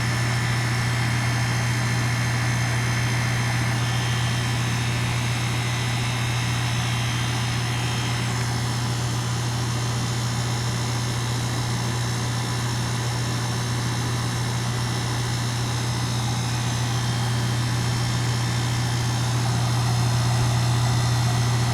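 Outdoor unit of a 2022 two-ton Goodman heat pump running in cooling mode: the compressor and condenser fan give a strong, steady low hum with steady higher tones above it.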